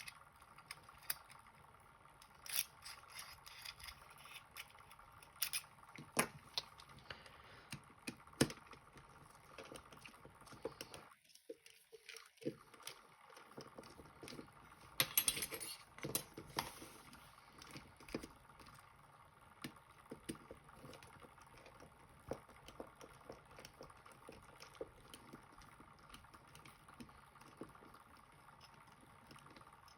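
Lock pick and tension wrench working the pins of a U-Shin Showa pin tumbler lock: faint scraping with sharp little clicks scattered throughout, and a louder scrape about fifteen seconds in.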